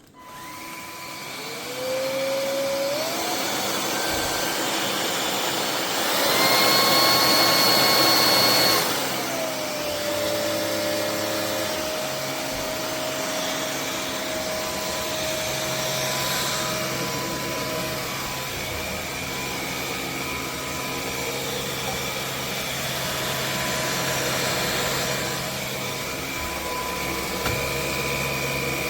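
MIUZZY cordless stick vacuum cleaner switching on, its motor whine rising as it spins up, then running steadily. About six seconds in it runs louder and higher-pitched for roughly three seconds before settling back.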